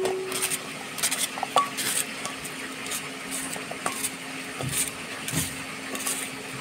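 Kitchen knife slicing a red onion held in the hand, with irregular clicks and a few short metallic rings as the blade and the falling pieces hit a stainless steel bowl. A faint steady low hum underneath.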